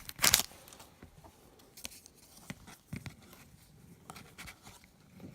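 A trading-card pack wrapper tearing and crinkling sharply at the start, then soft clicks and scrapes of cards being handled and flipped through one by one.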